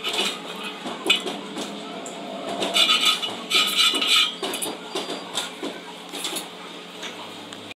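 A steel rule and a scribing tool clink and scrape against a steel truck rim held in a lathe, as a line is scratched onto the metal. There are small taps throughout and two short runs of scratching about three and four seconds in, over a faint steady hum.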